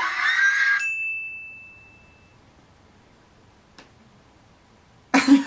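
A single high, bell-like ding rings for about a second and a half and fades out, following the tail end of music and voices. Then it goes quiet apart from one faint click, and loud voices and music start again near the end.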